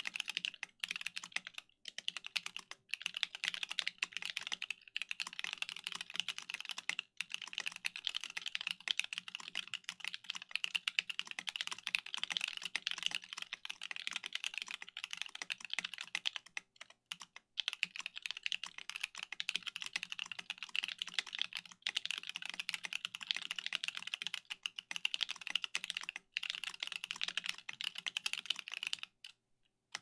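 Fast, continuous typing on an ergonomic mechanical keyboard: a dense run of key clacks, broken by short pauses about 2, 7, 17 and 26 seconds in, that stops just before the end.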